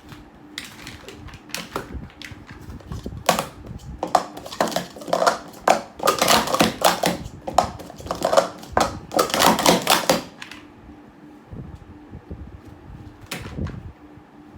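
Plastic sport-stacking cups clattering in fast runs of clicks as they are stacked up and down, thickest between about four and ten seconds in, then only a few stray clicks.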